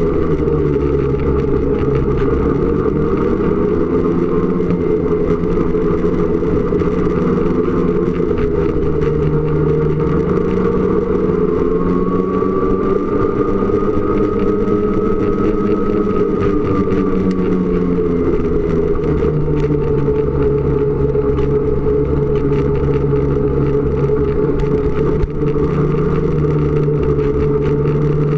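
Snowmobile engine and drivetrain running continuously at trail speed. The pitch climbs about a third of the way in, peaks around the middle and drops back to a steady note.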